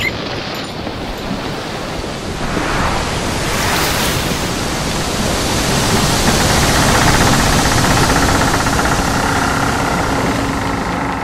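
A loud, steady rushing noise, like wind or surf, that builds over the first few seconds and eases off near the end, with a faint steady hum underneath.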